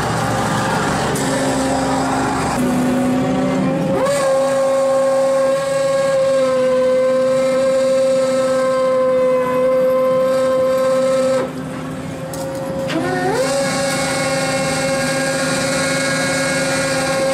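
Hydraulic winch on a scallop dredger whining as it hauls the dredge aboard, over the boat's engine and water noise. The steady high whine rises in pitch as it comes on about four seconds in, stops briefly past the middle, then rises again and holds.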